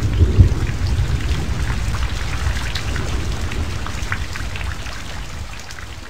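Heavy rain with a low rumble of thunder, loudest at the start and fading out steadily toward the end.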